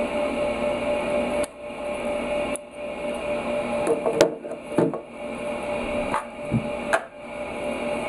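Parts of a small electric air-horn compressor being handled: several light clicks and knocks of metal and plastic pieces, mostly in the second half, over a steady background hum.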